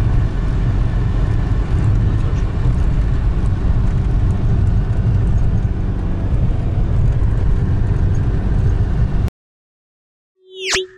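Steady engine and road noise heard inside a moving car on a wet highway. It cuts off suddenly about nine seconds in, and after a moment of silence a rising whoosh ends in a bright ding, a subscribe-button sound effect.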